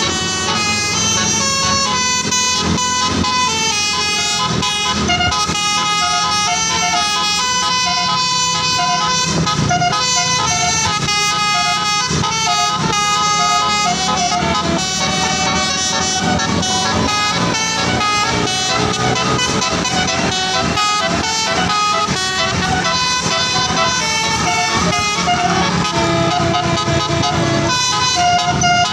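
Bus telolet horns: multi-tone air horns playing a melody of held notes that step up and down in pitch, over a low rumble.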